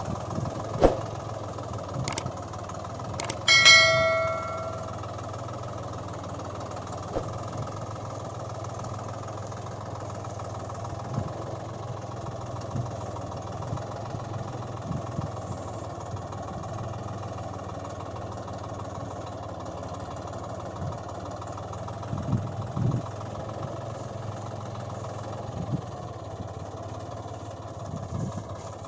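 Engine running steadily at a low idle, like a tractor engine. A few sharp clicks come in the first few seconds, then a single bell-like ring that fades over about a second.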